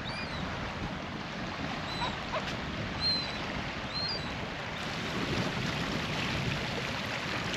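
Steady wind and lapping water on a bay beach, with a few short, high bird chirps in the first half.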